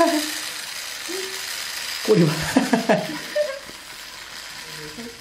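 Small motor and gears of a battery-powered wheeled toy mouse, whirring with a steady high-pitched rattle while a cat bats it, stopping near the end.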